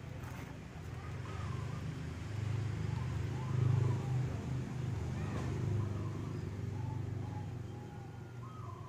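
A motor vehicle engine running steadily, a little louder around four seconds in.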